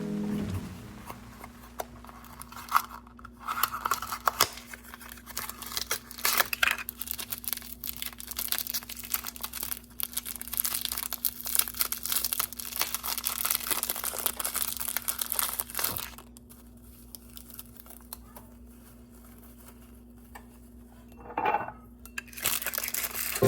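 Crinkling and rustling of handled packaging or paper, with many small clicks and knocks, for most of the first two-thirds; it then dies away to a faint steady hum, with one brief handling sound near the end.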